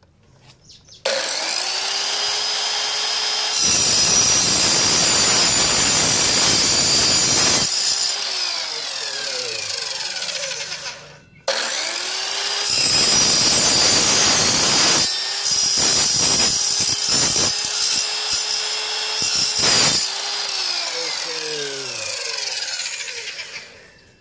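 Evolution EVOSAW180HD 7-1/4-inch steel-cutting circular saw run twice. Each time it spins up, cuts loudly through a thin rusty steel bar held in a vise for several seconds, then winds down. The second cut ends in a few short bites before the motor coasts to a stop near the end.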